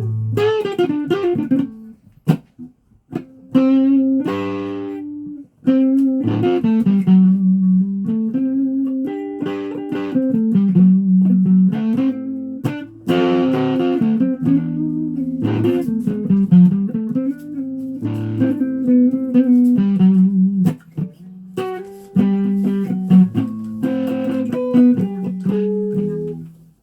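Guitar played as a plucked single-note melody, note after note with a few short breaks, stopping abruptly near the end.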